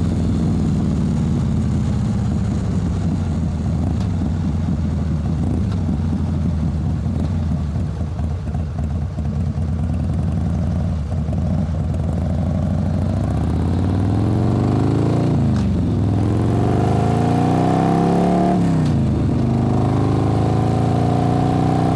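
Motorcycle engine running at a steady low speed, then revving up: the pitch climbs, falls off sharply, climbs again and falls again, then holds at a higher, steady note.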